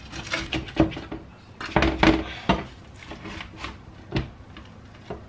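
A knife and then a plastic spatula scraping and knocking against a baking dish as a baked potato lasagna is cut and a portion lifted out: a string of irregular short clicks and scrapes, loudest about two seconds in.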